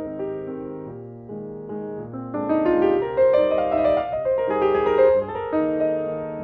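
Background piano music: soft held chords with a slow melody, growing busier and higher in the middle.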